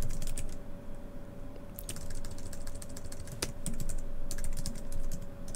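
Typing on a computer keyboard: keystrokes in short irregular runs with pauses, one sharper click about three and a half seconds in. A faint steady tone hums underneath.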